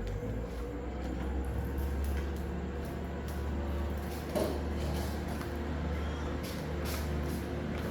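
A steady low hum, with scattered light clicks and one louder knock about four and a half seconds in.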